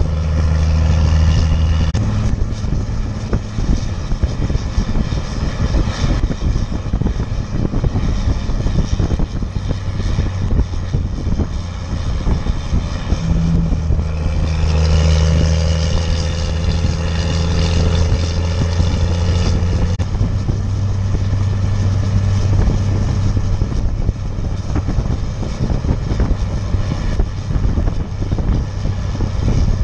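The 5.9-litre 12-valve Cummins inline-six turbo diesel of a 1995 Dodge Ram 3500, on a 5-inch exhaust, running under heavy load while towing about 12,000 lb. It is a steady low drone whose pitch steps up or down several times as the engine speed changes.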